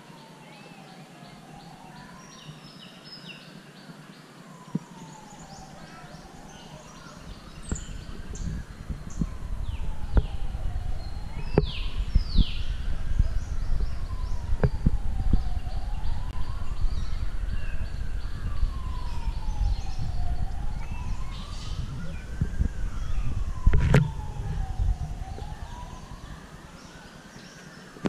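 A siren wailing slowly up and down, about one rise and fall every four seconds, with birds chirping. From about eight seconds in until near the end, a loud low rumbling noise is the loudest sound.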